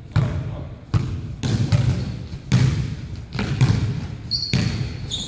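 Basketball dribbled on a hardwood gym floor: sharp thuds about twice a second, each with an echoing tail from the hall. Brief high-pitched sneaker squeaks on the floor near the end.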